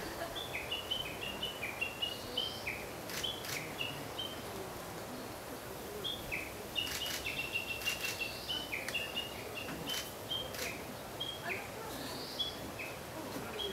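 Small songbirds chirping, runs of short high notes repeated again and again, with a few sharp clicks in between.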